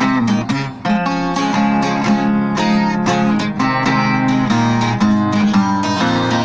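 Acoustic guitar music: a strummed and picked instrumental break between the sung verses of a gospel song.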